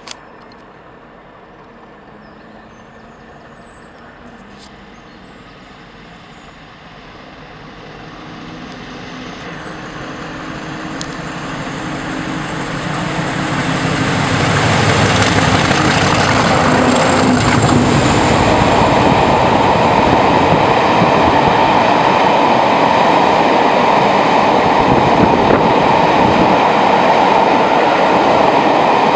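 A pair of English Electric Class 50 diesel locomotives working in multiple, their engines growing louder over about eight seconds as the train approaches, then loud and steady. A thin high whistle rises in pitch midway as they near.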